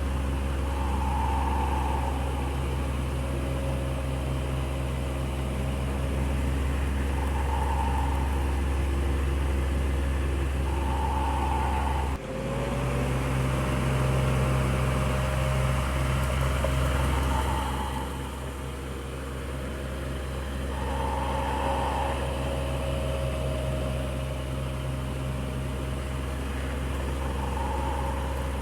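Electric fan running steadily, with a low motor hum and the whoosh of moving air. Soft swells recur every few seconds. The sound changes abruptly about twelve seconds in, with a brief dip.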